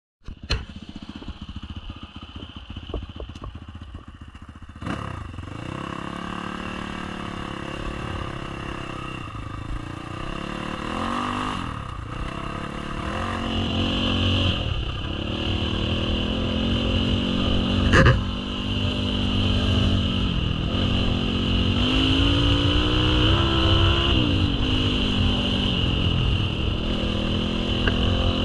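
Enduro dirt bike engine running under way, its revs climbing and dropping over and over with the throttle, with scattered clicks in the first few seconds. A single sharp knock comes about 18 seconds in.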